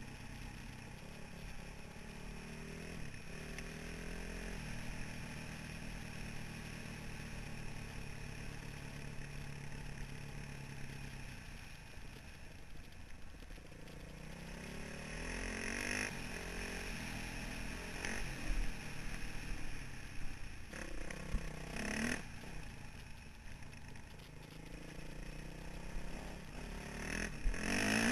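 2003 Honda CRF450R's single-cylinder four-stroke engine running under way on a dirt trail, its revs rising and falling with the throttle. In the second half, sharp knocks and clatter break in several times, the loudest near the end.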